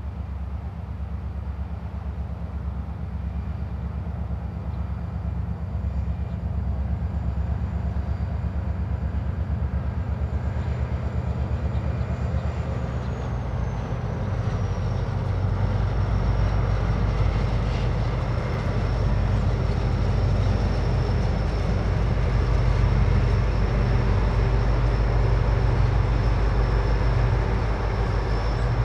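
Train running close by: a steady low rumble that grows louder, with a high thin whine that drops in pitch about halfway through.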